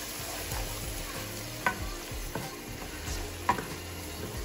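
Onions and ground spices sizzling in a non-stick frying pan while a plastic spoon stirs them, with two sharp knocks of the spoon against the pan.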